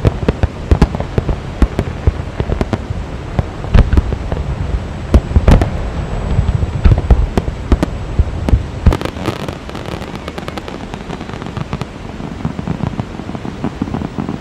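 Fireworks display: a rapid run of shells bursting with deep booms and sharp bangs. About nine seconds in comes a dense burst of crackling, which then thins to lighter, sparser crackles.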